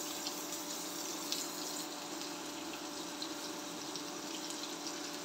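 Sliced onion and garlic sizzling in hot oil and butter in a nonstick wok: a steady hiss with small crackles and pops, over a faint steady hum.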